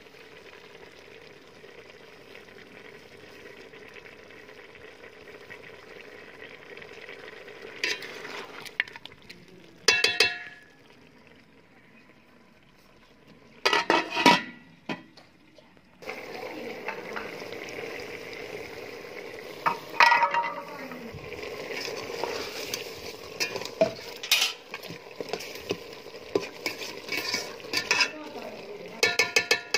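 Beef qeema simmering and sizzling in an aluminium pot, with sharp ringing metal knocks as an aluminium plate is handled against the pot. In the second half the sizzling is louder and metal utensils clink and scrape against the pot again and again, as when the qeema is stirred.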